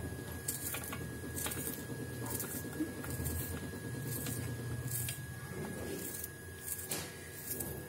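Crisp, sharp cuts of a small knife chopping an onion held in the hand, about one cut a second, over a low steady rumble.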